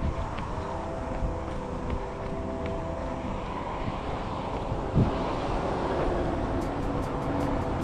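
Steady wind rumble buffeting the microphone, with faint sustained tones underneath and a single low thump about five seconds in.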